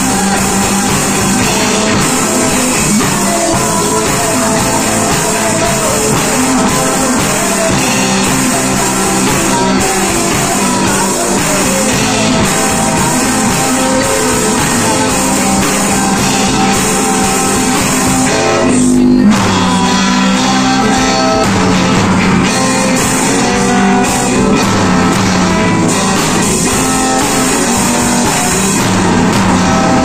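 A small rock band playing live and loud: electric guitars and a drum kit, with a man singing over them.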